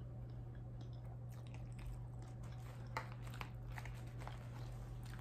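A person chewing food close to the microphone, with small wet clicks and smacks, the sharpest about three seconds in, over a steady low hum.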